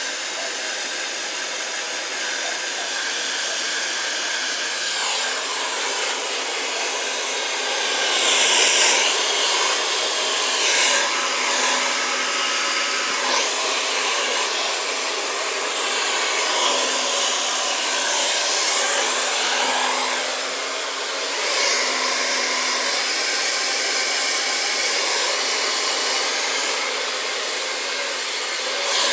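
Hand-held hair dryer blowing steadily on hair, its rush of air swelling and dipping as it is moved around the head, over a faint steady motor hum.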